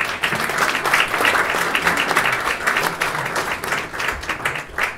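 Audience applauding: many people clapping at once, thinning out near the end.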